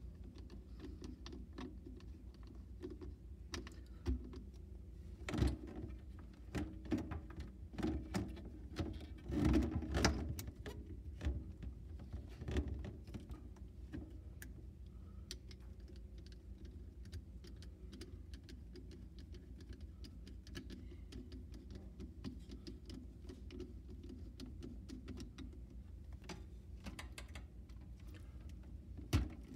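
Scattered light clicks and taps of hands handling a plastic drain adapter and tightening a metal hose clamp with a screwdriver, over a low steady hum. The clicks are busiest in the first half, then thin out.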